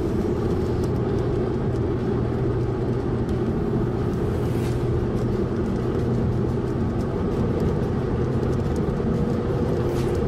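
Car driving along a road: steady low rumble of engine and road noise.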